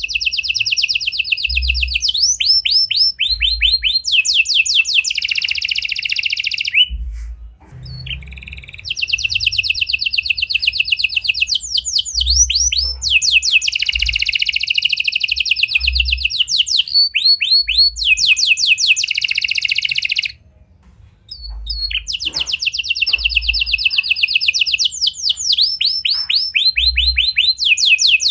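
Red-factor domestic canary in full song: long rolling trills of rapidly repeated notes, each run a second or two long before jumping to a new pitch. The song breaks off briefly about eight seconds in and again about twenty-one seconds in.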